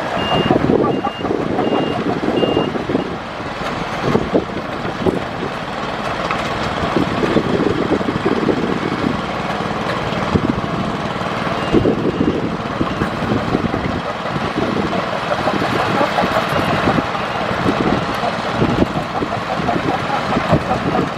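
Heavy earthmoving machine running hard, its diesel engine and tracks giving a loud, dense rattling noise. A reversing alarm beeps about twice a second for the first couple of seconds, then stops.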